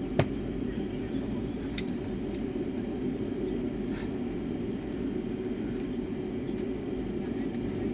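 Steady low hum inside the cabin of a Boeing 757-200 airliner, with a single sharp click about a quarter of a second in and a couple of faint ticks later.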